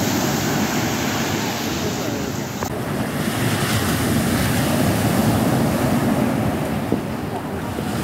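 Sea surf breaking and washing up onto a sandy beach, with wind buffeting the microphone.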